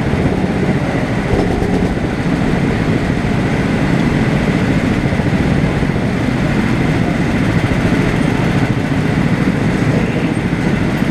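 Rental go-kart's small single-cylinder gasoline engine running steadily at low speed.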